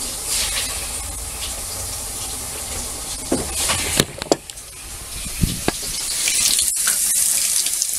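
Hot water running from a faucet into a stainless steel sink, a steady hiss that grows louder and brighter in the last couple of seconds. A few sharp knocks and clicks come midway.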